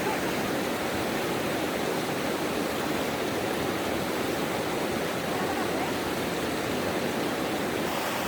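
Mountain valley stream rushing steadily over rocks, an even, unbroken sound of flowing water.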